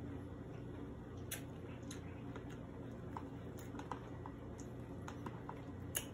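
Scattered small clicks and taps of a metal spoon against a plastic container as cereal and milk are stirred and scooped, with soft chewing sounds, over a low steady hum.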